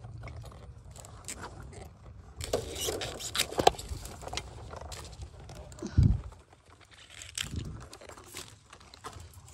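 Dry bamboo twigs and leaf litter crackling and scraping in irregular bursts as someone pushes in among the spiny stems of a bamboo clump. A dull low thump about six seconds in is the loudest sound.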